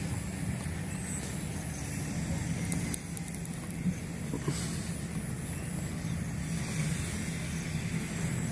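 A vehicle engine running steadily at low speed, a constant low hum.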